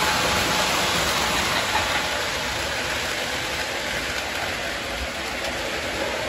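Electric model train running on its track close by: a steady rolling noise of wheels on rails and the motor.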